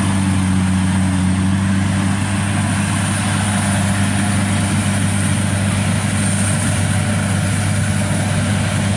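Kubota DC-60 rice combine harvester running while it cuts standing rice: a steady diesel engine drone with a constant low hum, unchanging throughout.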